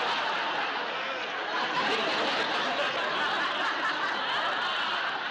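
Sitcom studio audience laughing at a punchline in one long, unbroken wave of laughter.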